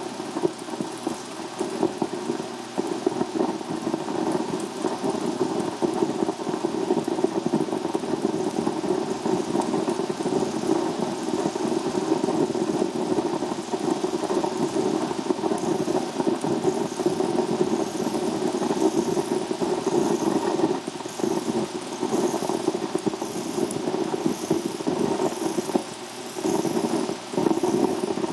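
Steady, dense rattling buzz from a hand-made 16mm sound film being projected, with a brief drop in level near the end.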